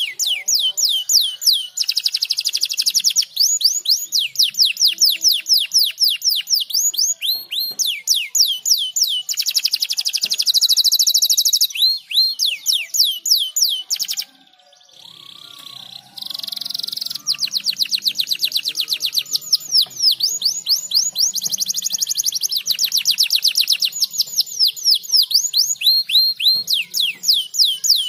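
Domestic canary singing long, fast rolls of short, high, falling notes, with a brief break about fourteen seconds in before the song resumes.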